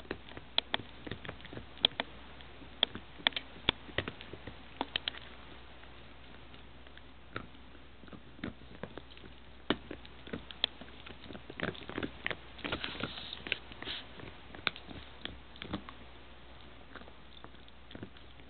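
Boston terrier gnawing on a chew bone: irregular clicks and scrapes of teeth on the bone, with a busier stretch of quick chewing a little past the middle.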